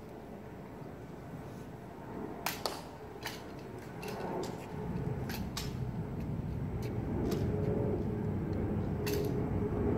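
Sharp, irregular clacks from the ceremonial guards' drill, about ten in all, over a low rumble that swells from about halfway in.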